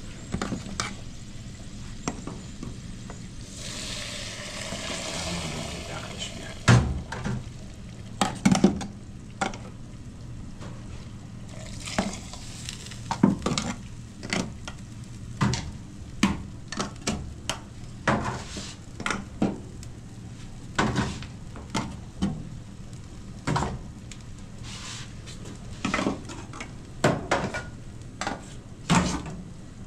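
Pots and metal utensils being handled in a busy kitchen: a long run of irregular clinks and knocks. There is a hissing noise for a couple of seconds about four seconds in.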